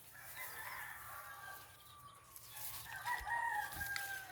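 Rooster crowing in long drawn-out calls, with the clearest crow about three seconds in.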